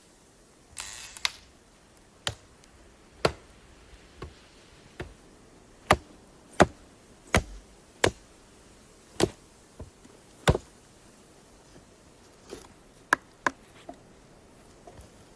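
An irregular series of sharp chopping or knocking strikes, about fifteen of them at roughly one a second, with a short rustle near the start and a pause a little after the middle.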